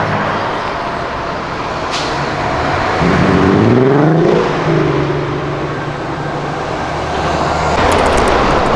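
Volkswagen Passat CC accelerating past in street traffic. Its engine revs up in a rising tone about three seconds in, changes gear a second and a half later, then holds a steady note.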